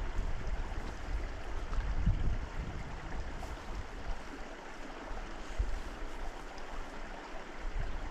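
Creek water running steadily, an even rushing hiss with some low rumbles underneath.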